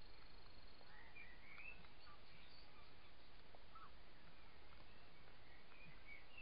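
Steady hiss with a few faint, short chirping calls, a cluster about a second in and another near the end, and scattered faint ticks.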